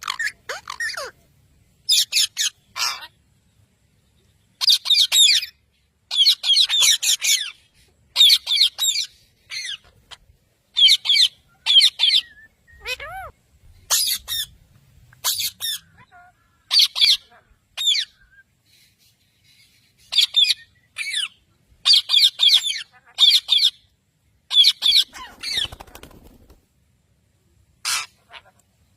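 Pet parrots squawking and chattering in a series of short, high, shrill calls, in clusters of bursts separated by brief pauses.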